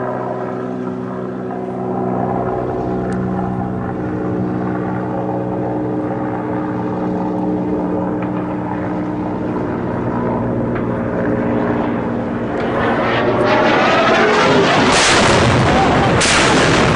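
Mil Mi-24 Hind helicopter's turbine engines and rotor droning steadily overhead, then the blast of its dropped bomb: a loud rush of noise building from about 13 seconds in, with two sharp cracks near the end.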